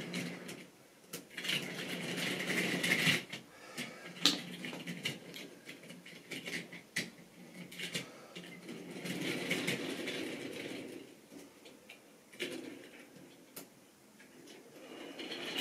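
Model railway train running on sectional track: wheels clattering over the rail joints with sharp clicks and a low motor hum, growing louder and fading away twice.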